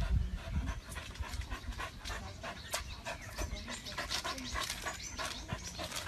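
A dog panting in quick, uneven breaths, with a low thump right at the start.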